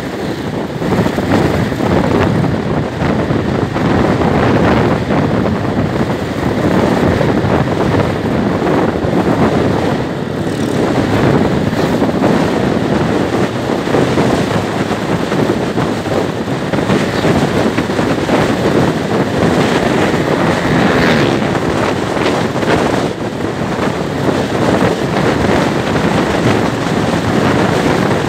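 Wind rushing over the microphone of a moving Suzuki motorcycle, with its engine running underneath at steady cruising speed.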